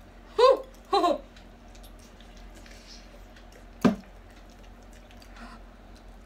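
People eating noodles: faint chewing and small fork clicks, broken by two short vocal sounds about half a second and a second in, and a brief sharp vocal sound about four seconds in.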